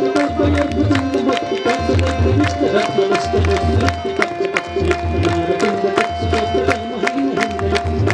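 Hindu devotional aarti music with drum beats like a tabla's, sharp rapid strikes about four or five a second, and a steady held tone under it.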